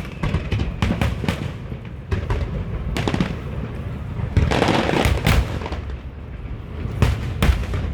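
Fireworks exploding overhead: a quick series of sharp bangs, with a dense crackling stretch a little past halfway.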